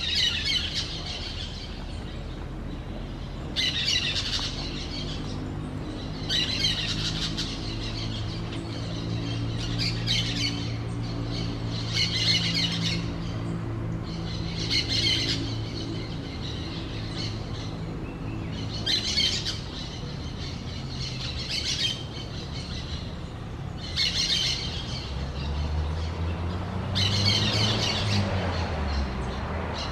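Orange-chinned parakeets chattering in short bursts of harsh, high squawks, a burst every two to three seconds. A low steady hum runs underneath, and a low drone swells and fades near the end.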